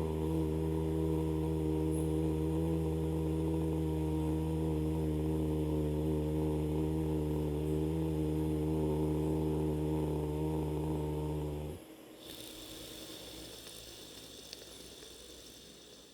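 A man humming one long, low, steady note through the nose during pranayama breathing, held for about twelve seconds and then stopping abruptly; a fainter hiss follows.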